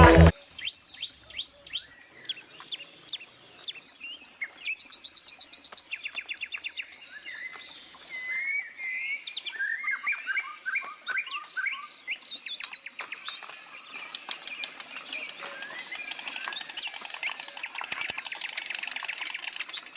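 Birds chirping and singing: short descending chirps and fast trills at first, turning into dense overlapping chatter from about fourteen seconds in.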